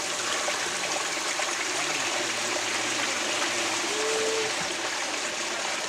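Steady rush of running water, from water pouring through a Gold Cube gold-recovery sluice as buckets of dredged gravel are cleaned up. A faint low hum lies under it.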